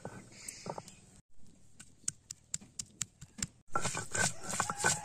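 Peeled garlic cloves being crushed on a stone grinding slab: a quick run of sharp knocks, about five a second, then near the end a denser, louder stretch of crushing and scraping, with chickens clucking.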